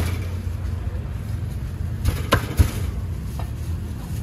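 Steel cleaver chopping grilled chicken on a wooden chopping block: a few sharp knocks, one at the start and two close together just past two seconds in, over a steady low rumble of wind and traffic.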